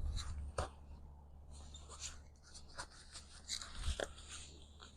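Fabric and frame of a pop-up baby canopy being handled: uneven rustling with a couple of sharp clicks, one about half a second in and one about four seconds in.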